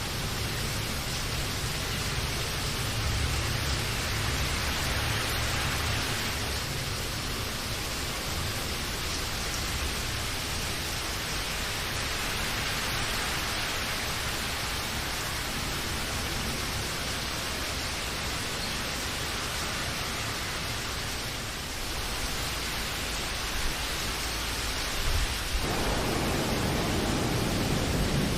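Steady rain falling, an even hiss of drops. About 26 seconds in the sound shifts to a deeper, fuller rush.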